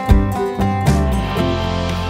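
Background music: quick picked notes on a steady beat, giving way about one and a half seconds in to softer held notes.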